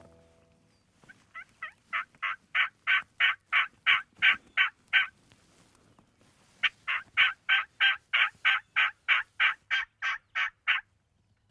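Turkey yelping in two long runs of evenly spaced, repeated notes, about three a second. The first run starts softly and grows louder; the second starts after a pause of about a second and a half.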